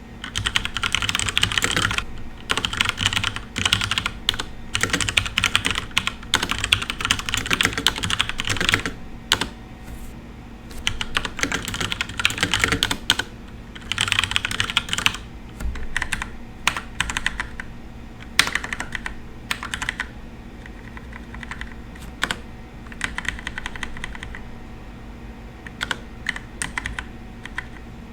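Typing on a FILCO Majestouch Ninja Tenkeyless mechanical keyboard with brown switches: quick runs of key clacks lasting a second or few, broken by short pauses.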